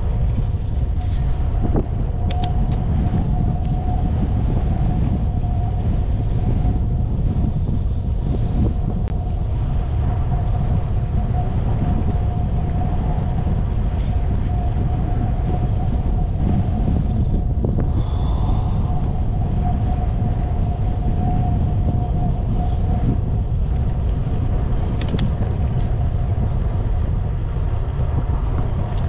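Wind buffeting the microphone of a camera carried on a moving bicycle, a loud, steady low rumble. A faint steady whine runs through most of it, and there is a short higher-pitched sound about eighteen seconds in.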